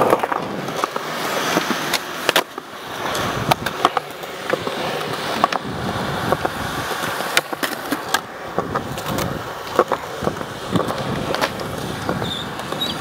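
Skateboard wheels rolling over smooth concrete with a steady rumble, broken by repeated sharp clacks at irregular intervals from the board popping and landing.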